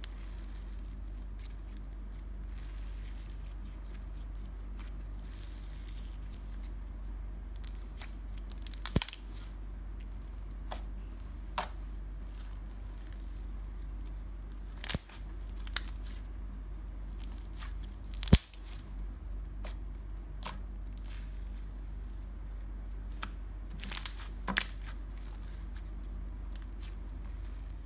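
Clear slime with foam beads being stretched, squeezed and folded by hand, with a handful of sharp pops scattered through, the loudest about two-thirds of the way in, over a steady low hum.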